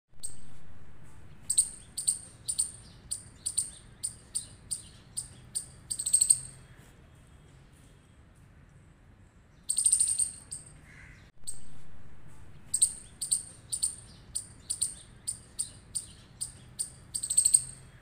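Striped palm squirrel's chirping alarm call: a rapid string of sharp, high-pitched chirps, about two to three a second. The chirps come in two runs of several seconds, each ending in a longer, louder chirp, with one longer harsh call between the runs.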